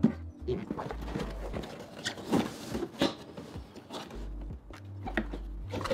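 Cardboard lens boxes and plastic packaging being handled: scattered taps, rustles and soft low bumps.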